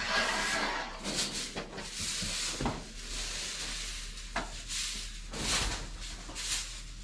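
Broom sweeping a concrete floor: irregular swishing strokes, with a couple of light knocks in the middle.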